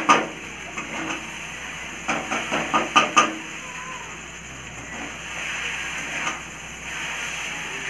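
Metal spatula knocking and scraping against a metal kadai while stirring and tossing noodles: a few knocks at the start and a quick cluster about two to three seconds in, over a steady hiss.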